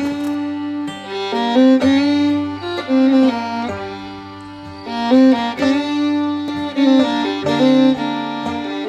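Background music: a melody of held notes that change pitch every half second to a second.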